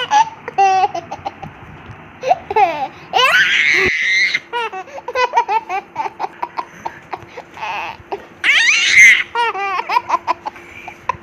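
Baby laughing in repeated bursts of high-pitched, quickly pulsing giggles, with two longer, louder squeals of laughter, one about three seconds in and one about eight and a half seconds in.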